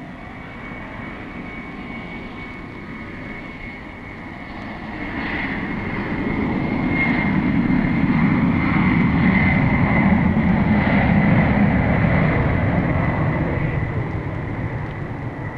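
The first Boeing 747's four Pratt & Whitney JT9D turbofan jet engines running at takeoff power: a steady roar with a high whine. The roar swells about four seconds in, holds loud, and eases slightly near the end.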